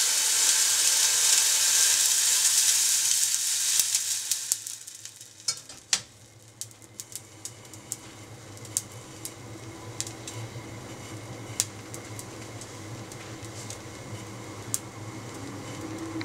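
Water poured from a kettle into a hot saucepan of konjac cubes, hissing and sizzling loudly for about four seconds. The hiss then dies down to scattered pops and ticks of the water heating in the pan, over the low steady hum of the gas burner.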